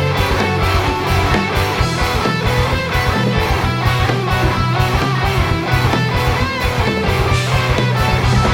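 Heavy metal band playing an instrumental passage: distorted electric guitars, bass guitar and fast, steady drums, with no vocals.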